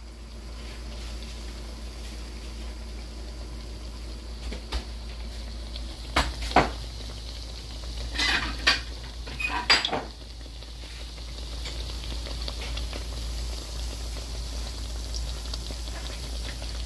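Kitchen utensils and cookware knock and clatter several times in the middle, over a steady sizzle and hiss from oil heating in a pan on the stove.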